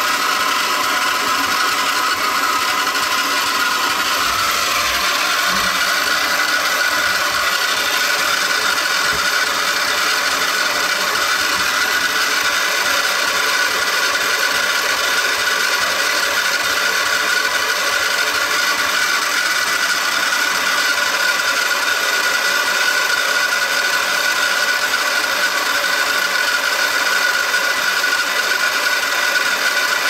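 Battery-powered motor of a 1968 Topper Suzy Homemaker toy washing machine running steadily on its wash cycle, driving the agitator with a steady whine that rises slightly in pitch about four seconds in.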